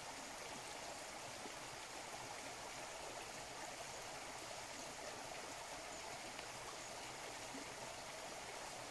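A rocky river running over stones: a steady rush of flowing water.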